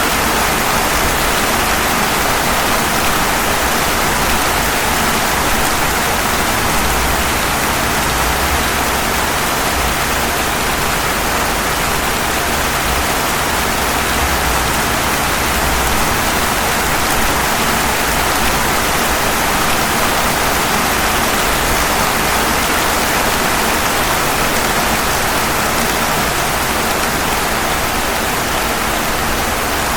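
Steady rain falling on pavement, an even, unbroken hiss of many drops.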